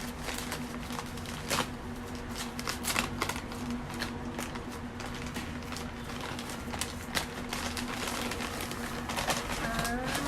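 Packaging being opened and handled, with irregular rustling and crinkling, over a steady low hum.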